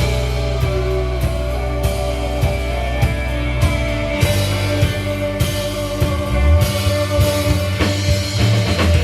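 Live rock band playing: drum kit keeping a steady beat under guitar and bass.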